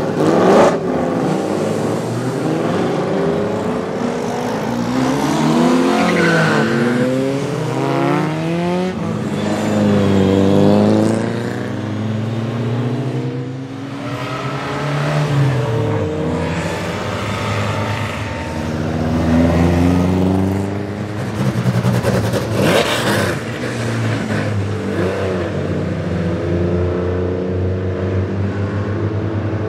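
Historic race and sports cars passing one after another at speed, their engines revving up and dropping back as they accelerate and change gear. Several engines are heard at once, with the loudest passes near the start and about two-thirds of the way through.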